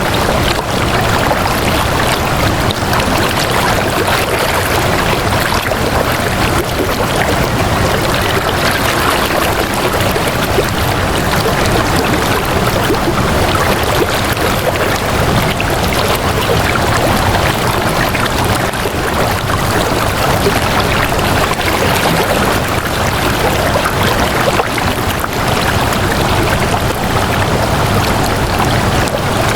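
Flowing water, running steadily like a stream with an even, unbroken rush.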